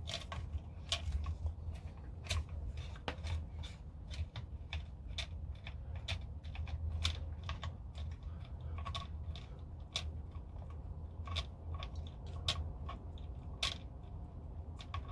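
Screwdriver tightening the pistol-grip screws into an airsoft M4 receiver: a run of light, irregular clicks as the tool turns and reseats in the screw heads, over a low steady hum.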